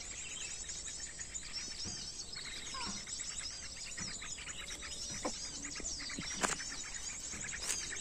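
Dense, continuous high twittering and chirping of small birds from a bird-lure recording (suara pikat) played on a loudspeaker to call small birds in. A few louder, lower notes stand out now and then.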